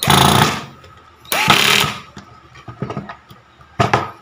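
Black & Decker GC1800 18-volt cordless drill/driver driving a wood screw into hardwood in short bursts: two runs of about half a second each, then a brief one near the end. The clutch is set to 18, enough to sink the screw head flush into the countersunk hole.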